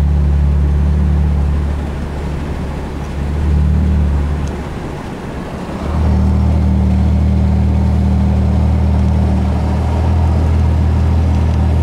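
Car engine and road noise heard from inside the cabin while driving: a steady low drone that drops in level for a few seconds midway and comes back up about six seconds in.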